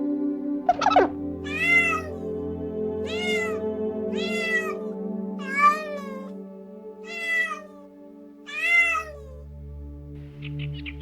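A cat meowing six times, short calls that rise and fall in pitch, spaced about a second and a half apart, over background music.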